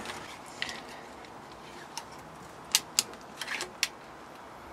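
Sharp clicks from handling a Hori-zone Redback pistol crossbow as it is made ready for a shot. There is a single click about two seconds in, then a quick run of four or five near the three-second mark.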